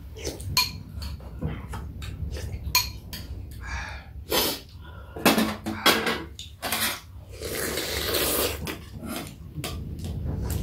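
Spoons and chopsticks clicking and scraping against ceramic bowls and a stainless-steel dish during a meal, with scattered chewing and slurping noises of soup being eaten.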